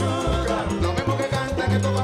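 Live salsa band playing a Latin dance number: a bass line in short, syncopated notes under keyboard and horns, with a lead singer.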